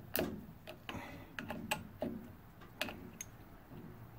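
Irregular sharp clicks and light taps, metal against metal and plastic, as a spring retaining clip is squeezed and pushed onto the motor shaft at the hub of a plastic squirrel-cage blower wheel.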